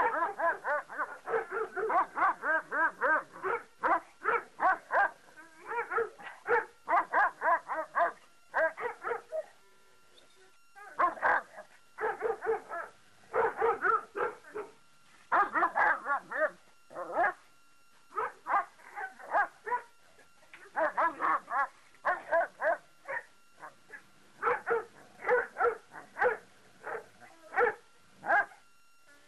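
Central Asian Shepherd Dog barking over and over in quick runs of short, fairly high barks, with brief pauses between runs, one of them about ten seconds in. The dog drops into a play bow, so these are play barks.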